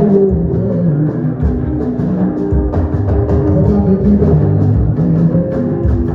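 Live band music, with drums keeping a steady beat under held low notes.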